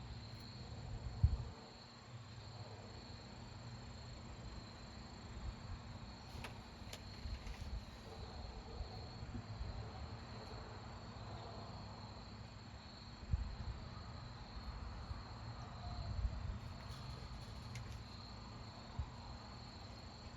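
Steady high-pitched cricket chorus over a low rumble, with a few soft thumps, the loudest about a second in.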